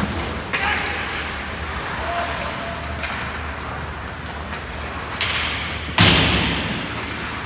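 Ice hockey play in an indoor rink: several sharp knocks of stick and puck, then a loud bang about six seconds in that echoes through the arena, over a steady low hum.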